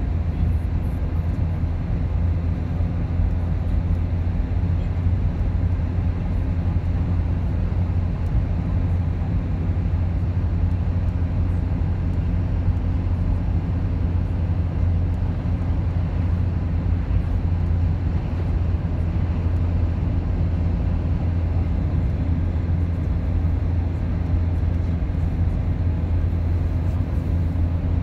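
Steady low rumble of a car driving along a road: tyre and engine noise heard from inside the cabin, with no change in pace.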